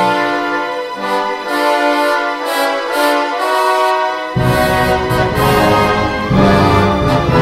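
Symphony orchestra playing a passage of held chords. Only the upper parts sound at first; the low instruments come in about four seconds in and fill out the sound.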